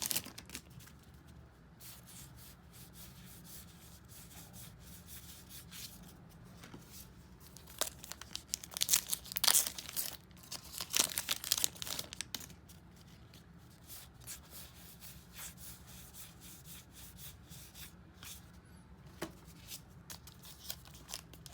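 A pack of baseball trading cards having its wrapper torn open and crinkled, with irregular spells of crinkling, the loudest in the middle and again near the end.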